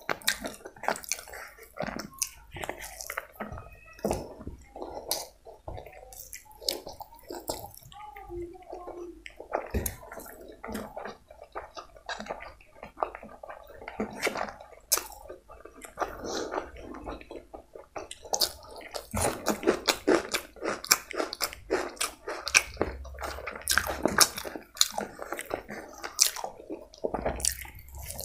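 Close-miked wet chewing and lip-smacking of a person eating chicken biryani by hand, a quick run of many small smacks and clicks, with fingers squishing and mixing the rice on a paper plate. The smacking comes thickest in the second half.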